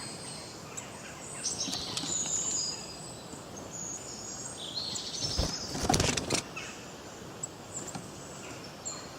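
Forest birds singing, with many short high chirps and whistles over a steady background hiss. A brief, louder rustling burst comes about five and a half seconds in.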